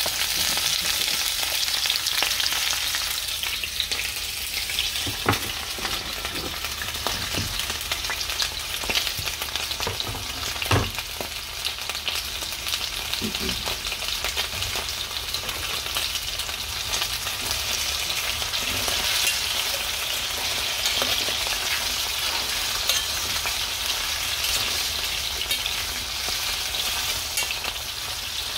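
Potato wedges frying in hot oil in a stainless steel pan, giving a steady sizzle, with an occasional light knock.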